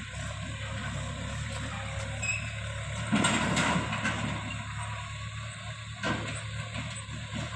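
Tractor engine running steadily as it drives over a rough, rocky dirt track. About three seconds in, a loud burst of clattering noise comes as it passes close and jolts over the bumps, and a short sharp knock follows about six seconds in.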